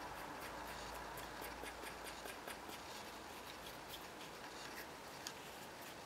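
Shop-built long-based wooden hand router plane paring thin shavings from the floor of a groove in a wooden board: a quick series of short, scratchy scrapes as the blade is worked back and forth.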